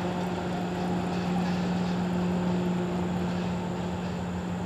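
A steady low mechanical hum of even pitch, under faint water pouring from a plastic bottle into a small aluminium cook pot.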